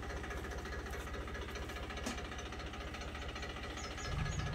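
Diesel engines of a tractor and a JCB backhoe running at low revs as they haul a sugarcane-laden trolley. About four seconds in the engine note gets louder and fuller as more throttle is given.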